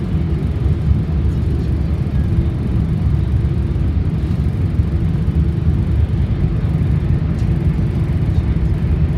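Steady low rumble of an E4 series Max double-decker Shinkansen running at speed, heard from inside the passenger cabin.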